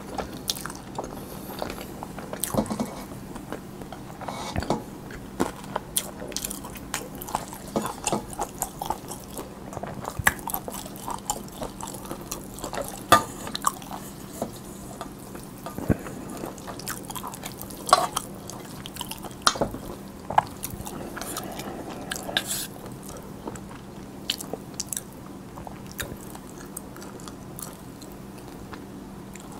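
Close-miked chewing of cold spicy noodles with young radish kimchi, whelk and cucumber: a steady run of wet smacks and small crunches, growing sparser near the end.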